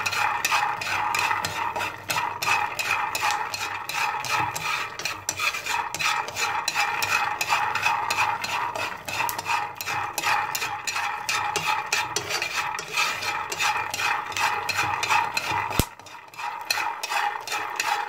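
Raw peanuts being stirred continuously in a dry frying pan with a wooden utensil, the nuts rattling and scraping against the pan, with a short pause about sixteen seconds in. This is the dry-roasting stage where the kernels begin to crackle and split in two but are not yet cooked.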